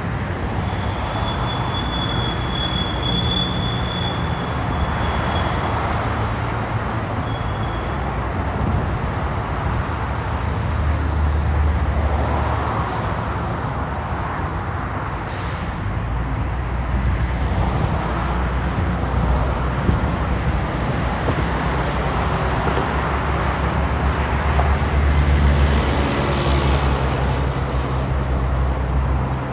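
Steady city avenue traffic: engines and tyres of passing cars and heavier vehicles, the low rumble swelling and fading as they go by. A thin high whine sounds for a few seconds near the start, and a brief high hiss about fifteen seconds in.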